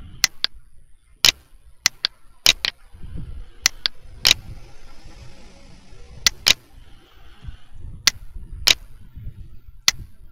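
Computer mouse clicking: a dozen or so sharp clicks, several in quick pairs like double-clicks, over faint low background noise.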